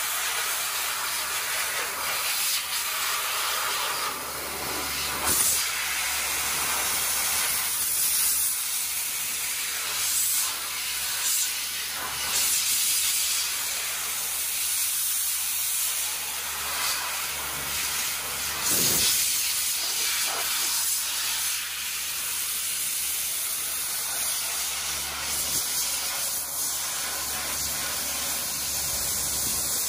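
Dry ice (CO2) blaster nozzle firing a steady, loud hiss of compressed air and dry ice pellets against the steel chassis and front suspension of a 2003 Toyota Land Cruiser. The blast has a few brief surges as the nozzle is moved over the parts.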